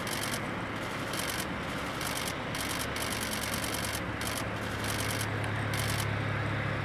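Steady vehicle engine noise with a low hum that grows louder about halfway through. Short hissy stretches come and go over it.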